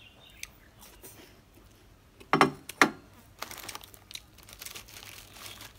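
Plastic snack packet crinkling as it is handled through the second half, after two short loud sounds a little over two seconds in.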